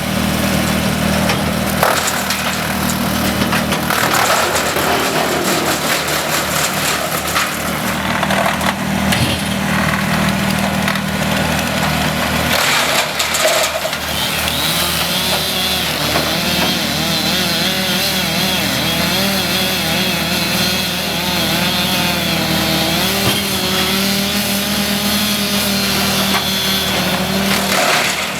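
A saw cutting wood over a steady engine drone, with a few sharp cracks in the first half. From about halfway a wavering, rising-and-falling whine rides over the engine.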